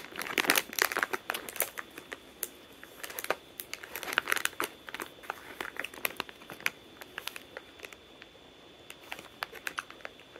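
Crinkling of a foil jerky bag being handled, in thick runs of crackles in the first two seconds and again about four seconds in, then scattered crackles.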